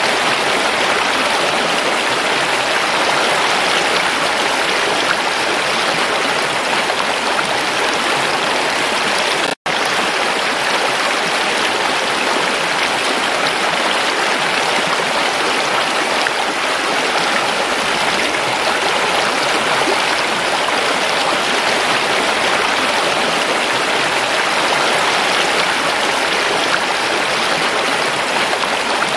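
Shallow rocky stream rushing and splashing over stones in a steady, even rush of water, with a split-second dropout about ten seconds in.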